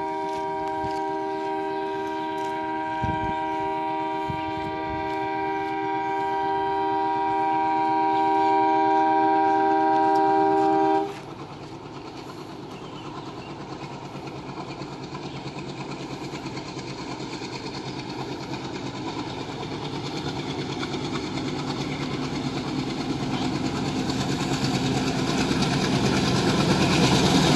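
Horn of an approaching WDM-3A diesel locomotive: one long steady blast that cuts off suddenly about eleven seconds in. Then the locomotive's engine and its wheels on the rails grow steadily louder as the express nears.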